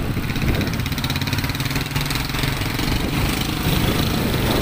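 Motorcycle engine running steadily at low speed in street traffic.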